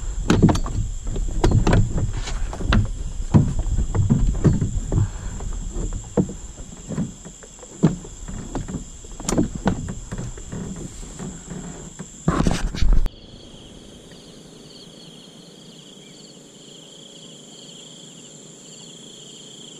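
Irregular knocks and thumps of gear being handled in a small metal boat, over a steady high chirring of insects. About thirteen seconds in the knocking stops abruptly, leaving only the insects' pulsing chirr.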